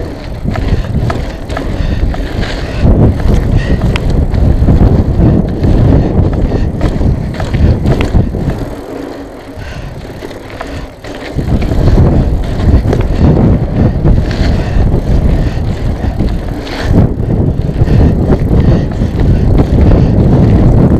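Mountain bike ridden over a pump track: steady rumble of tyres and wind on a helmet-mounted action camera, with small clicks and rattles from the bike. It eases off for a couple of seconds about nine seconds in, then picks up again.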